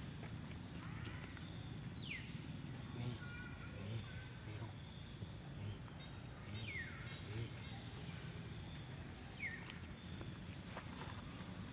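Outdoor ambience with a steady high insect drone throughout and a low background rumble. A bird gives three short whistled calls that fall in pitch, about two seconds in, around seven seconds, and near the end.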